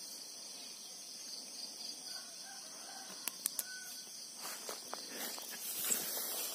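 Rural morning ambience: steady insect chirring, a rooster crowing faintly about two seconds in, and footsteps brushing through tall grass near the end.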